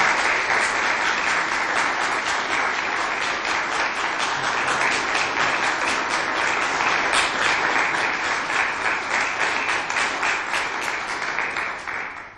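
Audience applauding, a steady clatter of many hands clapping that dies away near the end.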